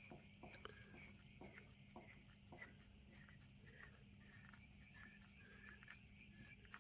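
Near silence, with a few faint light clicks as the injector cap nut is unscrewed from a Fordson Major diesel fuel injector, over a faint steady hum.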